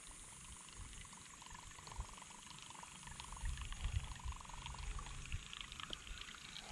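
Creek water running faintly, with gusts of wind rumbling on the microphone.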